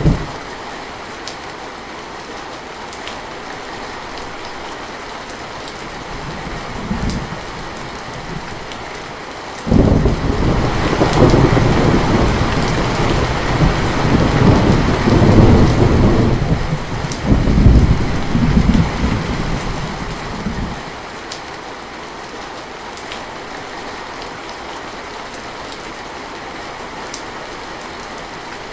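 Steady rain hissing, with a long roll of thunder about a third of the way in that rumbles in several swells for some ten seconds before dying away. A faint low rumble comes a few seconds before it.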